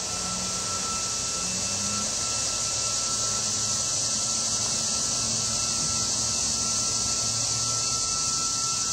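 Honeybees buzzing around the hive, a low hum that wavers in pitch and fades out near the end, under a loud, steady, high-pitched hiss and a thin steady whine.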